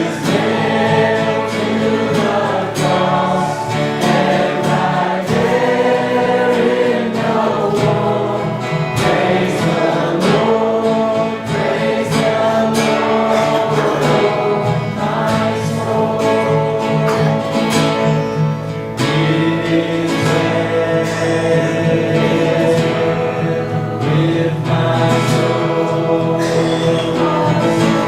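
Worship music: a group of voices singing a hymn with guitar accompaniment.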